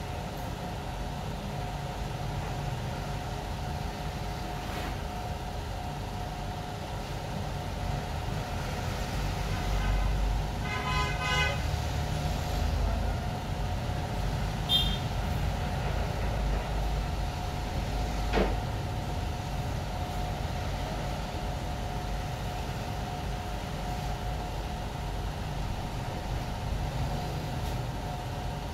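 Steady hum of running CNC router workshop machinery, with a constant mid-pitched tone and a low rumble. About ten seconds in a short pulsing horn-like toot sounds, and a single sharp knock comes a little past the middle.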